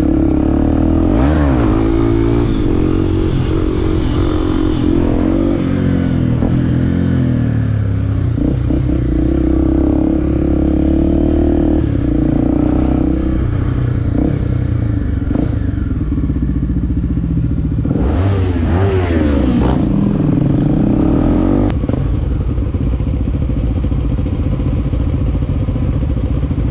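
Motorcycle engine running under way, its pitch rising and falling as the revs change about a second in and again around eighteen to twenty seconds in, over steady road and wind noise.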